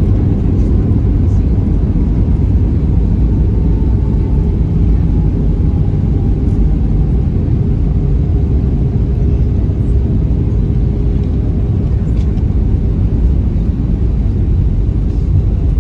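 Steady low rumble of a moving vehicle, with a faint tone slowly falling in pitch.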